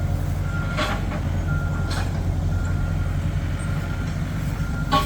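Heavy earthmoving machine's diesel engine running steadily with its reversing alarm beeping on and off, and a few sharp cracks as it works through cleared brush.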